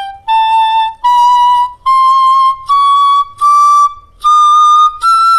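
Persian ney (end-blown reed flute) playing a slow ascending scale in its high qeys register: seven separate held notes, each a little higher than the last, about one every three-quarters of a second. It climbs from sol, through a si-koron and a do-sori, toward mi.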